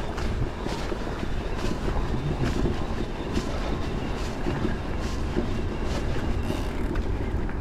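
Electric mountain bike rolling over a bumpy grass track: a steady low rumble of tyres and wind on the microphone, with frequent irregular clicks and rattles from the bike jolting over the bumps.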